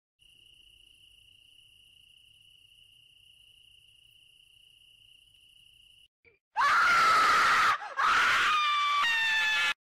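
A faint, steady insect trill, like crickets at night, for about six seconds. It gives way to two loud, long human screams, the first about a second long and the second lasting nearly two seconds and falling in pitch at its end.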